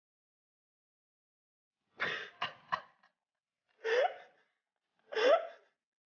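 A person coughing in a short burst, then making two brief vocal sounds that rise in pitch, while chewing and tasting a mouthful of cake.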